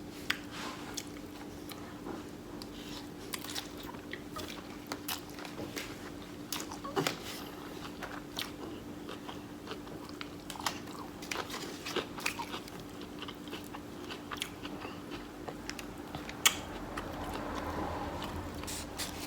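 A person eating close to the microphone: bites and chewing, heard as many short irregular clicks, with one sharper click about sixteen seconds in.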